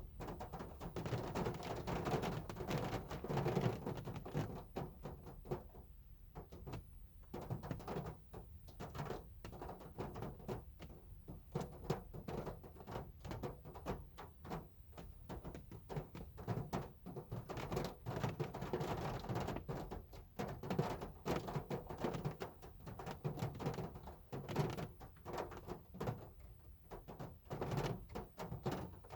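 Hard rain drumming on a car, a dense, irregular patter of drops striking the metal body and glass over a low rumble, swelling and easing in waves.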